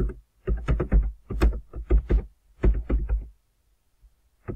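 A voice speaking in short phrases, falling quiet after about three seconds.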